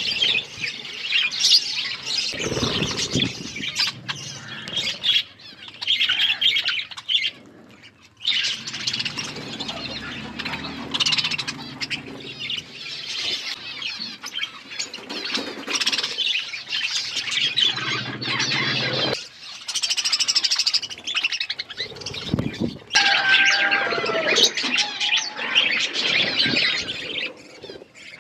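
Flock of budgerigars chattering, with many high chirps overlapping and a brief lull about eight seconds in.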